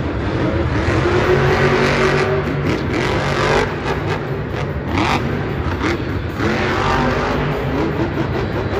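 Grave Digger monster truck's supercharged V8 revving hard as the truck drives and jumps, its pitch climbing and dropping several times over a dense low rumble.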